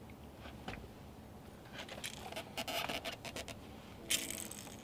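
Hand-handling noises on a boat deck: a quick run of clicks and light scrapes, then a short rasp near the end, as the angler works with the catch and tackle.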